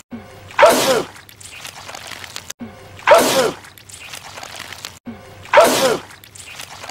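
A man's sneeze, the same sneeze looped and repeated three times about two and a half seconds apart. Each starts suddenly and loudly with its pitch sliding down, then trails off quieter.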